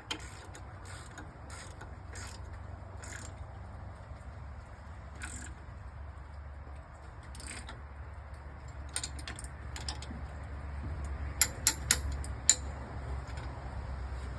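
Scattered metallic clicks and clinks of hand tools and parts during work on a truck's engine bay, with a quick run of sharp clicks about eleven to twelve seconds in, over a steady low hum.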